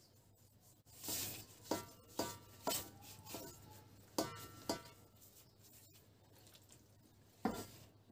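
Raw leg of lamb being handled and turned over in a black enamel roasting pan, knocking against the pan: a quick run of about seven knocks with a short metallic ring, then one more near the end.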